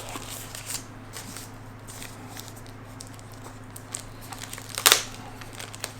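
Faint rustling and handling of unboxed drone parts and packaging over a steady low hum, with one sharp click about five seconds in.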